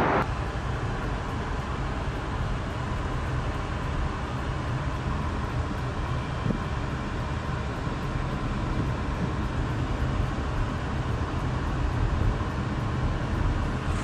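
Steady low rumble of road and engine noise heard inside a moving car's cabin.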